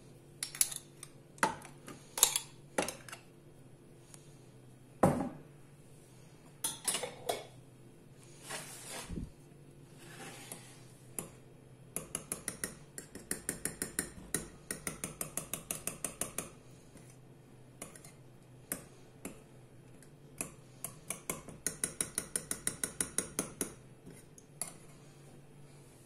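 Kitchen utensils and dishes clinking: a few separate sharp knocks and clinks, then two runs of quick, even clinks, about six a second, of a utensil beating against the inside of a bowl.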